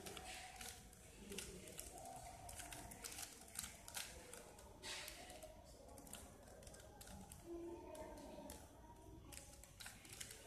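A plastic 3x3 Rubik's cube turned quickly by hand: faint, irregular runs of clicks and clacks as its layers rotate.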